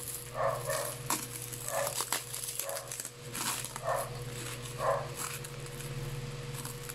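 Clear plastic wrap crinkling and rustling as hands peel it off a plastic facial-wash tube, with several short animal calls in the background about a second apart. A steady low hum runs underneath.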